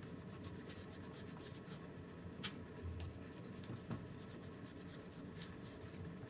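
Cloth rubbing plastic polish over a scratched clear plastic clock front in quick back-and-forth strokes, a faint scratchy rubbing.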